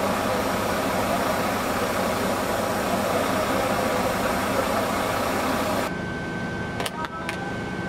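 Steady engine-like running noise with a broad hiss. About six seconds in it drops abruptly to a quieter hiss carrying a steady high tone, with a few sharp clicks near the end.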